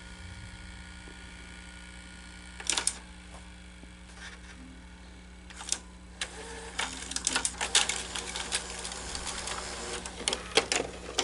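Scattered clicks and light rattles of hands and small tools working on an open Betamax VCR's mechanism, over a steady low hum. Two single clicks come first, then a busier run of irregular clicks through the second half.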